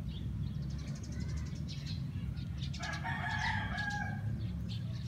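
A rooster crows once, a drawn-out call lasting about a second and a half, starting near the middle. Faint crunching clicks come from a cow chewing chopped jackfruit.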